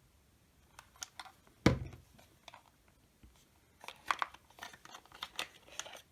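Packaging and box contents being handled: a few light clicks, a sharp knock about a second and a half in, then several seconds of crinkling and rustling.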